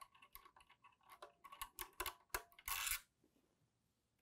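Small screwdriver backing a small screw out of a Grundfos MLE motor's electronics housing: faint, irregular clicks and ticks of tool on screw and plastic, coming faster from about a second in and ending with a brief scrape just before three seconds.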